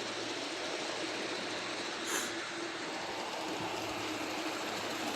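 LGB garden-scale tank engine pulling a string of ore cars, with the steady running noise of wheels on the track and one brief sharp click about two seconds in.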